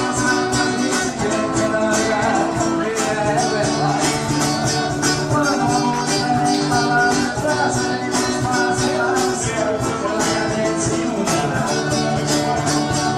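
Background music: a song with guitar over a steady beat.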